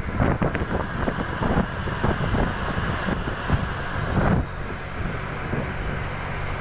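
Wind buffeting the microphone over the road and engine noise of a moving vehicle. Gusty for the first few seconds, then settling into a steadier hum.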